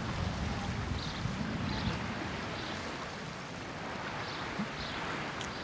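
Wind on the microphone: a gusty low rumble over a steady hiss, easing after about two seconds. Faint high chirps or ticks recur about every half second.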